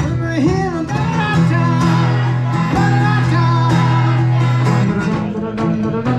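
Live music: guitar and other instruments playing over a steady beat, with some singing.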